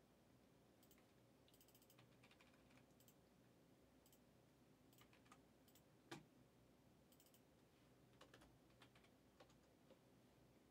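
Near silence with faint, scattered computer keyboard taps and clicks, one sharper click about six seconds in.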